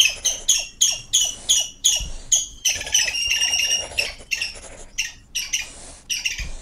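Felt-tip marker squeaking on paper in quick back-and-forth colouring strokes, about four or five short squeaks a second.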